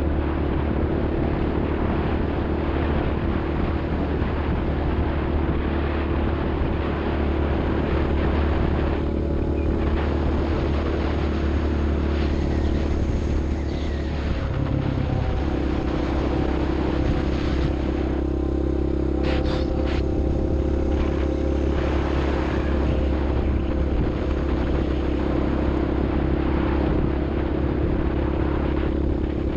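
Off-road vehicle engine running steadily with a constant low drone; about halfway through its pitch shifts briefly, then it settles and runs steady again.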